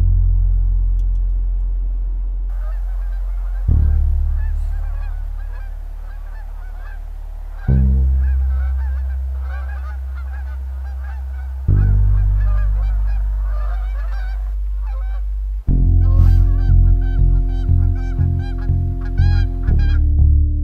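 A flock of geese honking over deep, sustained bass notes that are struck about every four seconds. About three-quarters of the way through, the music turns into a faster, pulsing rhythm.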